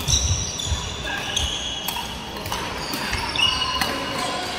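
Badminton doubles rally in a large hall: sharp racket hits on the shuttlecock every second or so, sneakers squeaking on the wooden court floor, and thudding footsteps.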